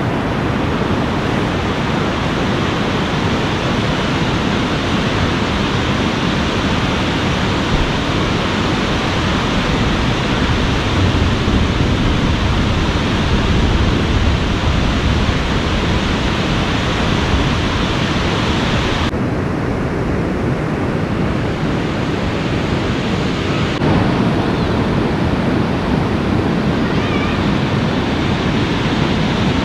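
Steady, loud rushing of a fast-flowing, rain-swollen river. The higher part of the rush drops away suddenly about 19 seconds in and changes again about 24 seconds in.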